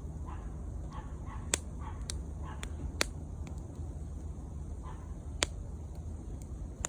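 Wood bonfire crackling, with about five sharp pops over a steady low rumble. Faint short calls repeat in the background.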